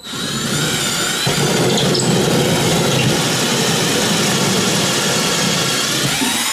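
Bauer cordless drill spinning a hole saw through drywall: a steady motor whine over the grinding of the saw teeth in the wall, stopping suddenly near the end as the cut goes through.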